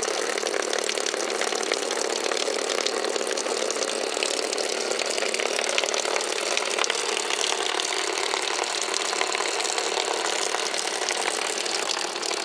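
A 12-volt electric fuel pump, wired straight to the truck's battery, runs with a steady, fast-ticking buzz as it pumps stale gasoline out of the tank.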